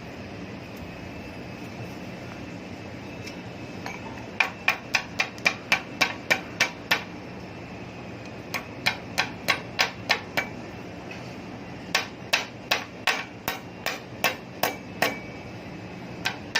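Hammer blows in quick runs of three to four strikes a second, with short pauses between the runs, over a steady background hum.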